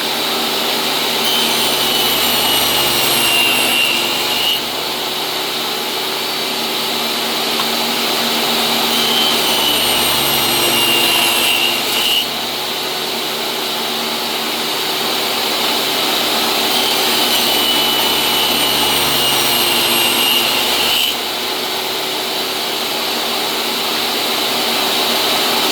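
DeWalt jobsite table saw running steadily while ripping a thin strip off board edges. There are three cuts, each a few seconds long, in which a higher whine rises slightly as the blade goes through the wood, and each ends suddenly as the board clears the blade.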